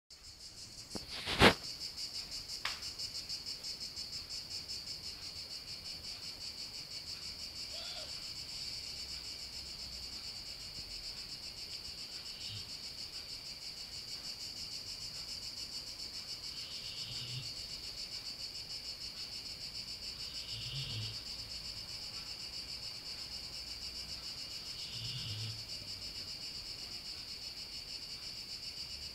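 A sleeping pet snoring softly, one snore about every four seconds through the second half, over a steady high trill of crickets. A single sharp click sounds about a second in.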